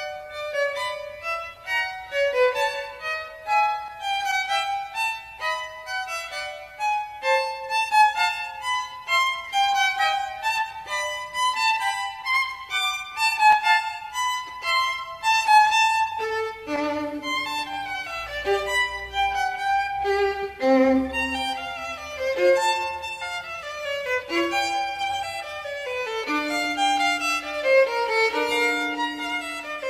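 Instrumental soundtrack music: a melody of quick, short notes in a high register, several a second, with lower, longer held notes coming in about halfway through.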